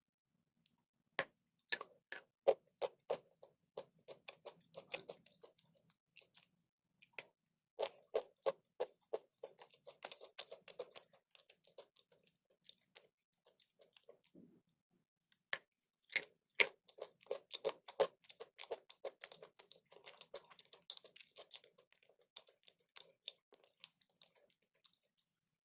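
A person biting and chewing crunchy chalk and clay, in rapid crisp crunches that come in three runs of several seconds each, with short pauses between.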